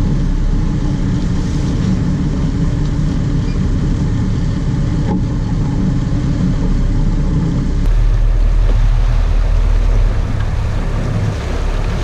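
Boat engine running steadily under a rush of wind and water. About eight seconds in, the engine note changes abruptly and its upper rumble drops away.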